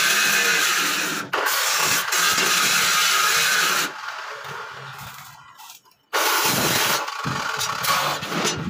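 Stick arc welding on a steel grill gate: steady noise of the arc, broken briefly about a second in and dying away about four seconds in. Loud, rough noise starts again about six seconds in.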